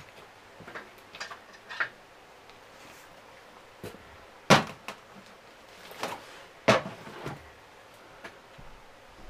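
A few scattered knocks and clatters of a welding helmet and gear being handled and set down on a wooden workbench, the loudest one about four and a half seconds in, with two more sharp knocks a couple of seconds later.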